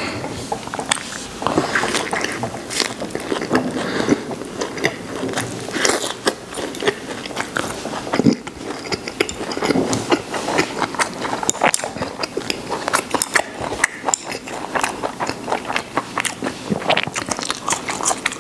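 Close-miked chewing of a roast duck wrap, a thin pancake rolled around duck and scallion shreds, with irregular wet clicks and crackles as it is bitten and chewed.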